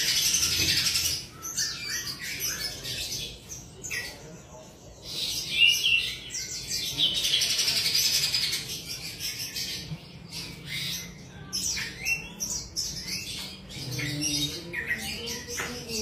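Caged grey-cheeked bulbul (cucak jenggot) singing repeated phrases of rapid high notes. The longest, loudest phrases come at the start and about six seconds in, with shorter phrases between and after.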